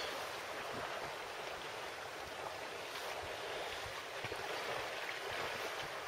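Steady rushing of gale-force wind, heard from inside a bivvy tent.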